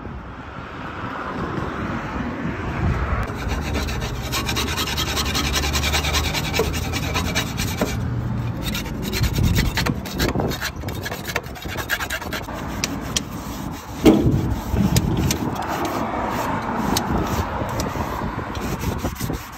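A Workpro flexible putty scraper scraping stickers and grime off a payphone's metal face in quick, rapid strokes, along with a cloth rubbing the surface. One sharp knock comes about fourteen seconds in.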